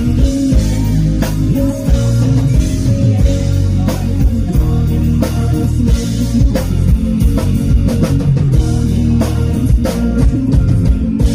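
Live band playing an instrumental passage of a rock ballad: guitars over a steady drum-kit beat, with no singing.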